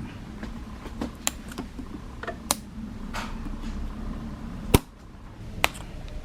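Small hard clicks and taps of parts and tools being handled on a smartphone during a screen repair, irregularly spaced, with the sharpest click a little under five seconds in and another about a second later.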